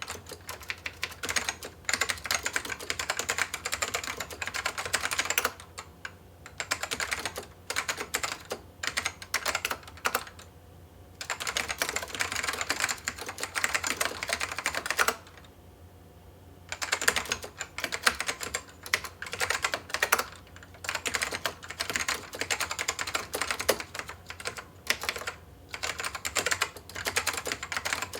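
Dell AT-101W mechanical keyboard with Alps switches being typed on fast, in runs of rapid keystroke clicks broken by pauses of about a second, three times. The freshly cleaned keyboard is being tested.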